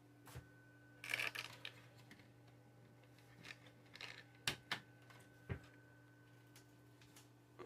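Quiet room with a steady low electrical hum. A short burst of rustling comes about a second in, and a few sharp handling clicks follow around the middle.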